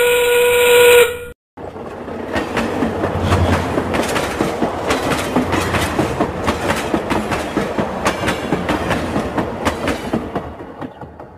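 Train sound effect: a steady train whistle that stops about a second in, then, after a brief break, the fast clickety-clack of train wheels running over the rail joints, fading out near the end.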